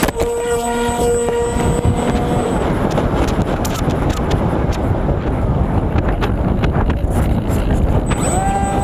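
Skysurfer RC foam plane's electric motor whining, with a brief knock right at the start; the whine fades out after about two and a half seconds, leaving rushing wind on the onboard microphone with scattered clicks as the plane tumbles after the mid-air collision. Near the end the motor whine comes back, rising and then holding steady.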